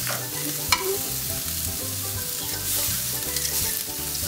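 Skirt steak sizzling as it goes onto the hot grates of a gas grill over direct flame, with a couple of sharp clicks of metal tongs near the start and just under a second in. Background music plays underneath.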